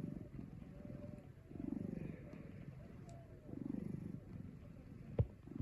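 A chubby cat snoring in its sleep, a low rasp on each breath about every two seconds, three times. A short sharp click sounds near the end.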